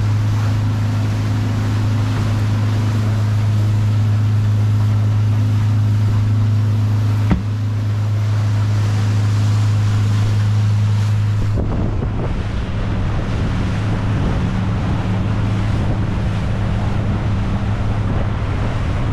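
Small boat's engine running steadily at speed as the boat planes across the water, with a constant low hum, water rushing past the hull and wind buffeting the microphone. A single sharp click comes about seven seconds in, and about eleven and a half seconds in the sound turns abruptly rougher, with more wind and splashing.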